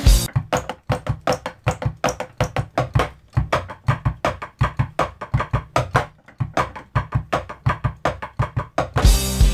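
Drumming on an electronic drum kit: a steady run of sharp stick hits, about four or five a second, with a short break about six seconds in.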